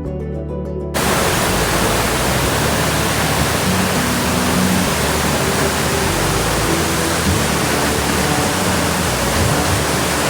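Acoustic guitar music cuts off about a second in, giving way to the loud, steady rush of water falling at Steinsdalfossen waterfall.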